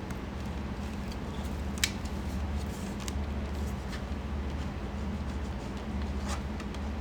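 Steady low hum with a faint hiss, and a few light clicks and ticks, the sharpest about two seconds in and another near the end.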